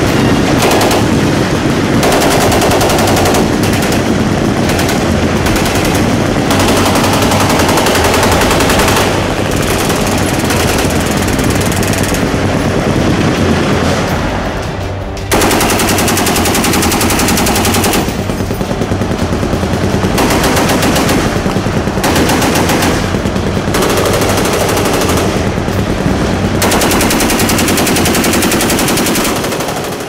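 Machine guns firing on full automatic in long, continuous strings of rapid shots, with several guns overlapping. The firing dips briefly about fifteen seconds in, then comes back at full level.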